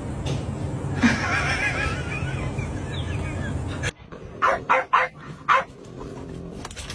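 A dog barking four short times in quick succession in the second half, after a stretch of steady background noise with faint high squeaky sounds.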